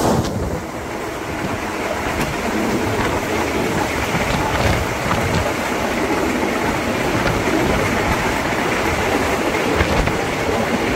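Moving passenger train: a steady rumble of wheels on rails, with a faint, even clickety-clack over the rail joints.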